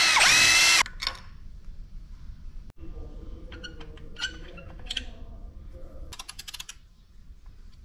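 Cordless drill spinning a bolt out of the camshaft locking plate, its motor whine shifting in pitch and stopping under a second in. Then light metallic clicks and taps as the flywheel locking pin is worked free, with a quick run of clicks near the end.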